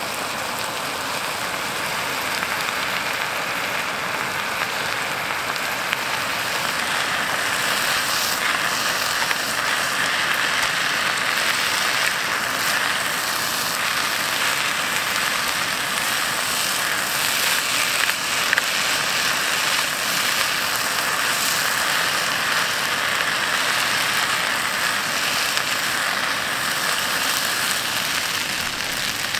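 Noodles and vegetables sizzling in a pan over a small camping gas stove: a steady, even sizzle with a few small pops.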